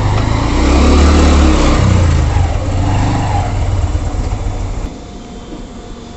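A motorbike or scooter engine running close by, with a strong low rumble. It is loudest over the first three seconds, then drops off sharply about five seconds in.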